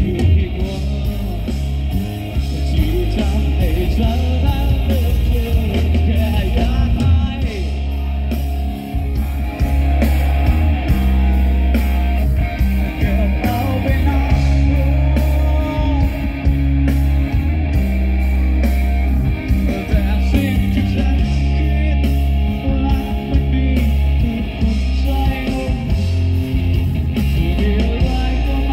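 Live rock band playing through a stage PA: a male singer over electric guitar, bass guitar and drums, with a heavy bass.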